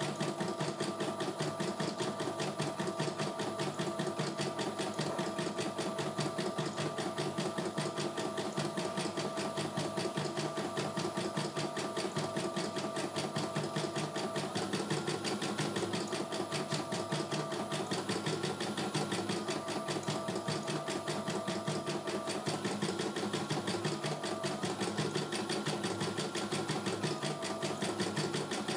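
CNY E900 computerized embroidery machine stitching a design, a fast even run of needle strokes over a steady motor hum. About halfway through, the hum begins stepping up and down in pitch repeatedly.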